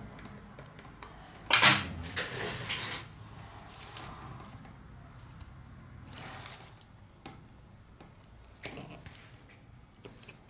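Hands handling a tablet and a roll of double-sided adhesive tape: a loud scraping rustle about a second and a half in, a shorter rustle around the middle, then a few light taps and clicks.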